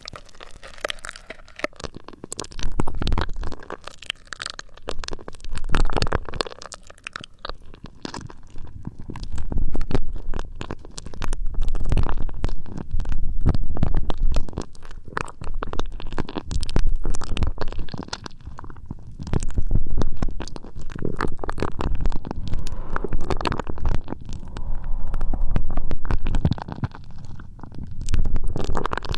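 Hands rubbing and stroking an ASMR microphone up close, ear-massage style: muffled rumbling swells every two to three seconds, full of crackling and scratching.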